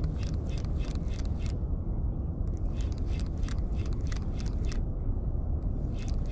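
Ultralight fishing reel being cranked in short spurts to retrieve a jig, a quick rhythmic clicking of about four ticks a second with brief pauses between spurts, over a steady low rumble.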